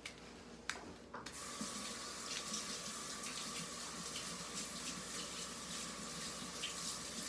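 A tap turned on about a second in, then water running steadily into a sink while hands are rinsed of glue and slime, with small splashes.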